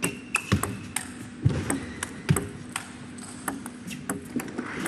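Table tennis rally: the celluloid-type ball clicking off the players' bats and bouncing on the table, many sharp clicks at irregular intervals. One player is a defensive chopper returning her opponent's attacking shots.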